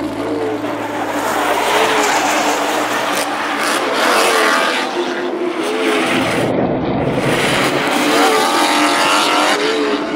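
Nissan 240SX drift car sliding at high revs, its engine rising in pitch twice over a steady screech of tires.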